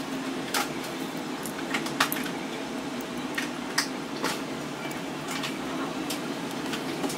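Small, irregular clicks and taps as fingers handle the internal parts and flex cables of an iPhone 14 Pro Max housing, about a dozen in all, over a steady low hum.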